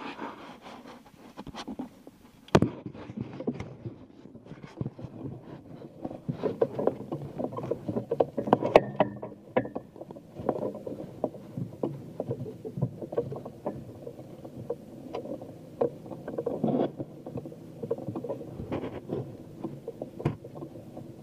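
On-board sound of a small boat afloat: a steady low rush with irregular knocks and clatters from the boat and its fittings throughout.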